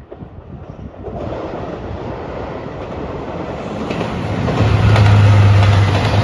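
JR Shikoku 2700 series diesel limited express train approaching and passing close by, with wheels running on the rails. Its rumble grows louder about a second in, and a strong steady low engine hum comes in over the second half as the cars go past.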